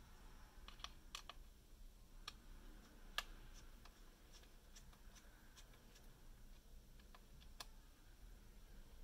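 Near silence broken by faint, scattered clicks and taps of a small screwdriver working the terminal screws on the motor leads in a plastic robot chassis. The sharpest click comes about three seconds in.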